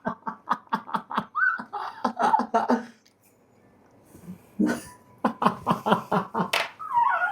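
A person laughing in two bouts of rapid ha-ha pulses, about five a second, with a short pause between them.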